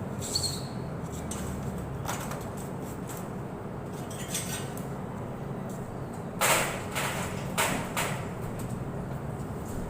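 Vehicle running with a steady low hum, with a brief high squeak about half a second in and three short, loud noisy bursts in the second half.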